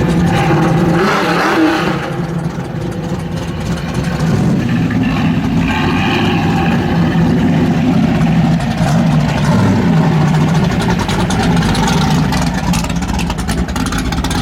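V8 muscle car engine running and revving, its loudness dipping slightly about two seconds in and building again.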